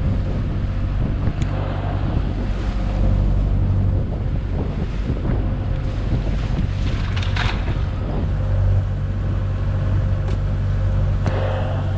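A fishing boat's engine running steadily as a low, even hum, with wind blowing on the microphone.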